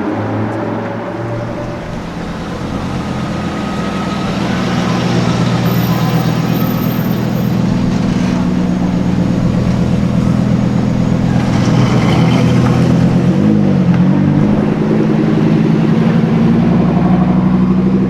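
A sports car's engine running at low, steady revs. It grows louder over the first few seconds, and its pitch dips and wavers briefly about two-thirds of the way through.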